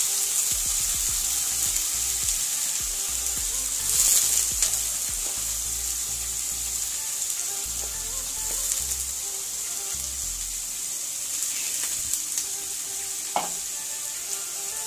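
Washed omena (small silver fish) sizzling in hot oil as they are dropped by hand into a frying pan for shallow-frying: a steady high sizzle that swells briefly about four seconds in. A single sharp knock sounds near the end.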